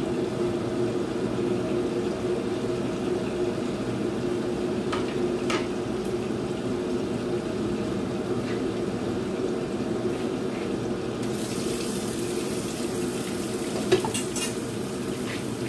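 Kitchen cooking sounds: a steady low hum throughout and a few light clinks of metal tongs against a pot. From about eleven seconds in, the hiss of milkfish frying in a pan joins.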